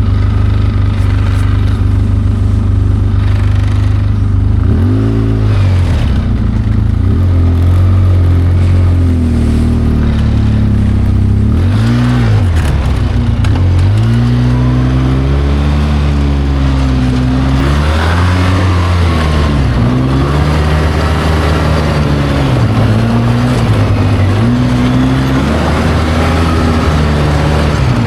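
ATV engine being ridden over a rough trail: steady for the first few seconds, then rising and falling in pitch again and again as the throttle is opened and eased off.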